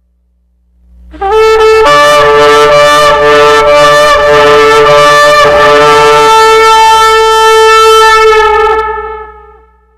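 A long, loud horn call, trumpet or shofar style: one held, brassy note starts about a second in, wavers briefly near the middle, and fades out near the end, over a low steady hum.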